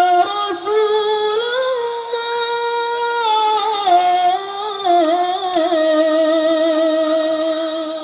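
A single young voice singing the slow, unaccompanied opening of an Islamic sholawat, no drums yet: long held notes with vibrato, stepping up and down in melismatic turns.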